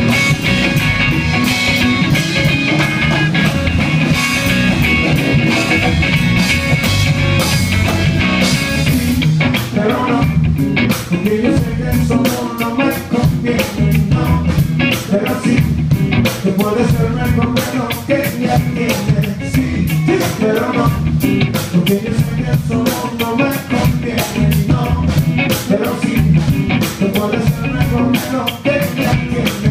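Live band playing a rock-style song on electric guitars and drum kit, with singing. About nine seconds in, the dense wash thins and a crisp, steady drum beat takes over.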